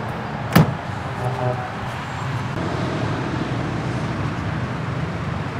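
A single sharp bang about half a second in as the truck's side storage locker flap is slammed shut, over steady vehicle noise with a low hum.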